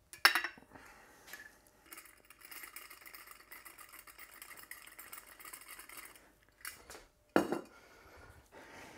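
Flour poured from a plastic container onto a dough board: a sharp knock just after the start, then a soft steady hiss for about four seconds as the flour runs out, then two sharp knocks close together near the end.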